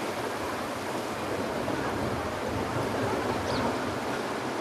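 Storm-driven harbour waves spilling over a low quay wall and sheeting across a flooded road: a steady rush of water, with wind.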